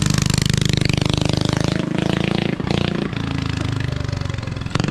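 Go-kart's small single-cylinder Predator engine running as the kart drives off, growing quieter over the second half as it moves away.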